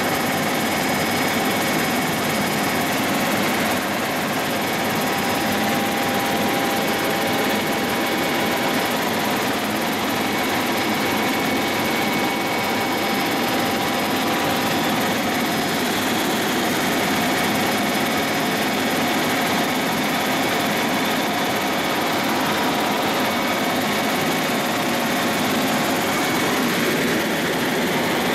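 Small helicopter in cruising flight, heard inside the cabin: the engine and rotor make a dense, steady rush with a constant whine over it.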